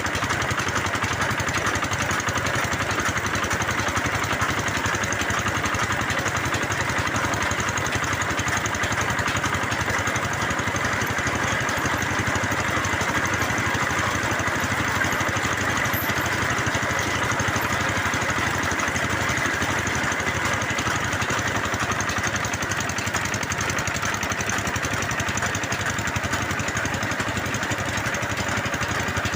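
Small engine of a bore-well drilling machine running steadily at a constant speed.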